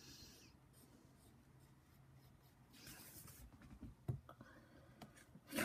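Faint scratching of drawing strokes on a sheet of paper, with a single sharp click about four seconds in.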